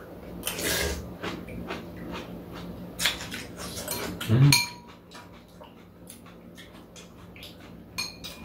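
Metal spoons and chopsticks clinking against bowls, with slurping and chewing as cold bean sprout and cucumber soup is eaten. The clinks are louder in the first half, and a short low murmur comes about halfway.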